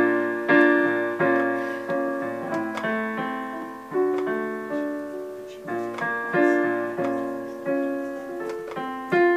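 Casio digital keyboard on a piano voice playing slow ballad chords, a new chord struck about every three-quarters of a second and each one ringing and fading.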